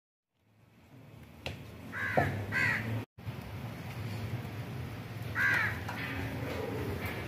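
A crow cawing three times, two calls close together and a third a few seconds later, over a steady low rumble.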